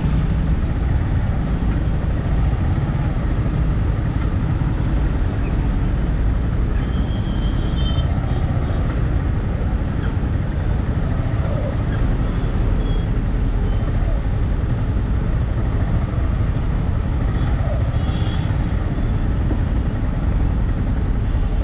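Steady low rumble of engines and road traffic, heard from a motorcycle crawling in a traffic jam.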